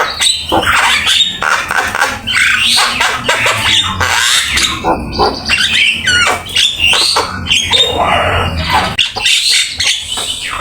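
Javan myna (jalak kebo) singing without pause: a fast, varied run of harsh squawks, chatter and quick whistled glides, with songs it has copied from other birds.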